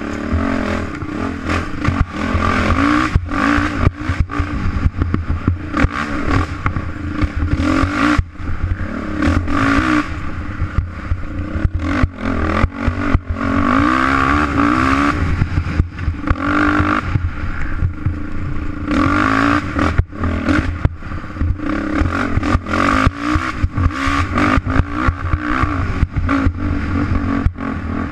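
Off-road racing engine at full race pace, revving up and down repeatedly as the rider works the throttle on a rough trail, with frequent knocks and rattles from the machine bouncing over the ground.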